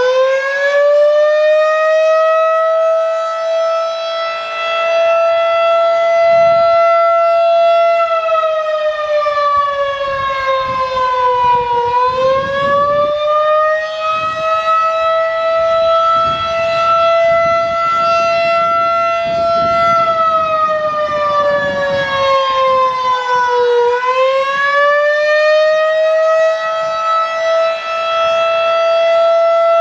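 Federal Signal 2001-DC single-tone electromechanical warning siren sounding a wail. Its pitch climbs, holds steady for several seconds, then sags and climbs again, about every 12 seconds.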